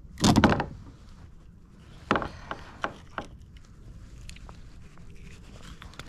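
Handling noises: a loud rustling thump, then about two seconds in a run of four sharp knocks, as a jundiá catfish that swallowed the hook is being unhooked.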